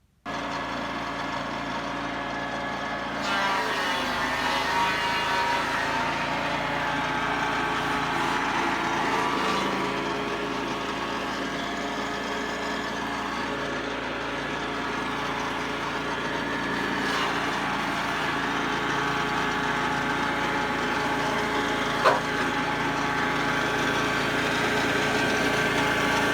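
Sawmill's engine running steadily while it cuts redwood into boards. It gets a little louder about three seconds in, with one sharp tick near the end.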